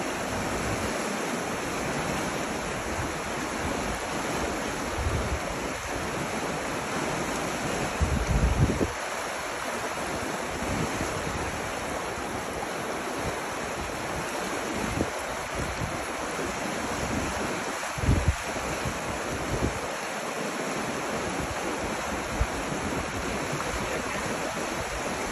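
Rushing river rapids: a steady, even rush of water. A few low gusts of wind buffet the microphone, the strongest about eight and eighteen seconds in.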